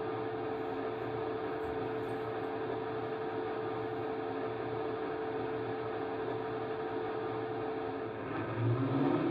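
Model railway locomotive running: a steady mechanical hum with several tones. Its note changes and grows slightly louder about eight and a half seconds in.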